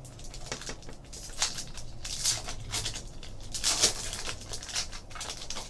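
Trading cards rustling and sliding as they are handled, in a run of irregular short rustles, the loudest about one and a half, two and a quarter and nearly four seconds in.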